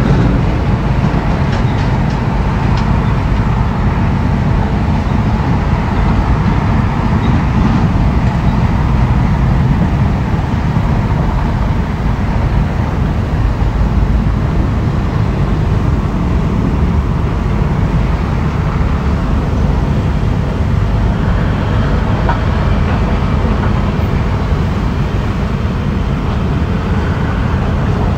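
Diesel engine of heavy earthmoving machinery running steadily, a dense low engine noise without pause.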